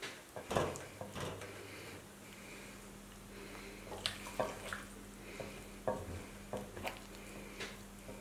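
Wet chicken wings being tossed and pressed in flour in a ceramic dish by hand: irregular soft knocks, taps against the dish and powdery rustling. A faint steady low hum comes in about two seconds in.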